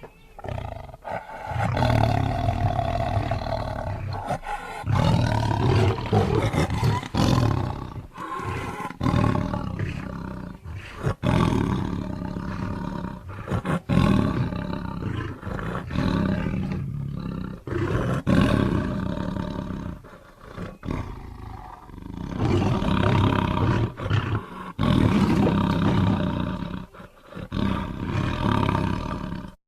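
Creature roar sound effects for a dinosaur monster, made from Giganotosaurus and lion roars, one after another with short breaks between them.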